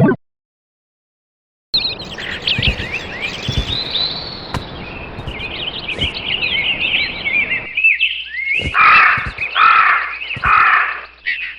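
Songbirds chirping in a dense chorus over a steady outdoor hiss, starting after about two seconds of silence. Near the end a crow caws four times.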